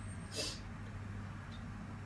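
A single short, hissing sneeze from a person, lasting about a quarter of a second.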